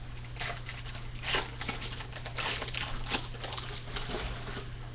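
Wrapper of a 2015 Bowman Baseball hobby card pack crinkling and tearing as it is opened by hand. It comes in irregular crackles, loudest a little over a second in and again about two and a half seconds in.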